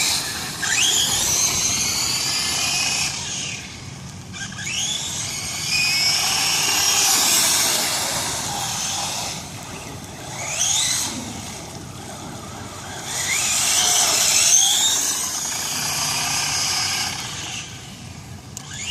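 Radio-controlled Traxxas Slash short-course truck running in bursts, its motor whining up in pitch each time it accelerates, with a steady hiss of tyres and spray as it drives through standing water.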